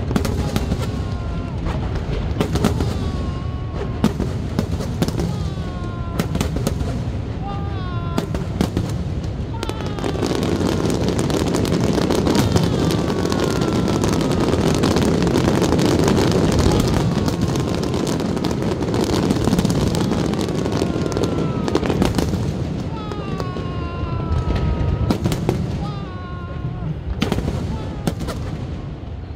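Aerial fireworks going off in a rapid series of sharp bangs and crackles, busiest and loudest in the middle stretch, with the voices of a watching crowd around the microphone.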